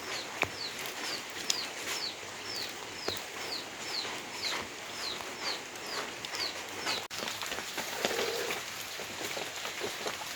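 A bird calling in a steady series of short, high, falling notes, about two a second, which stops about two-thirds of the way through, over a steady hiss.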